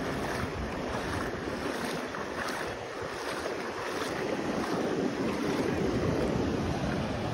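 Shallow sea surf washing in over bare feet at the water's edge, with wind buffeting the microphone.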